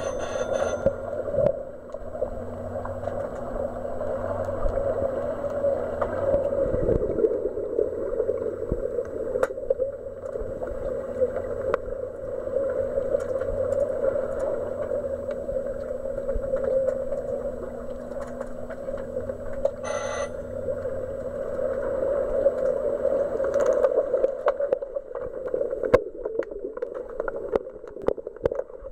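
Underwater sound of a swimming pool as heard by a camera under the surface during underwater hockey: a steady rushing noise with a faint hum, scattered sharp clicks and knocks, and a short tone about twenty seconds in.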